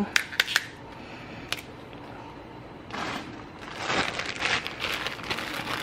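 A handful of fresh green beans being dropped and pushed into a pot of chopped cabbage and vegetables. A few sharp clicks come early, then a stretch of rustling with many light clicks from about three seconds in.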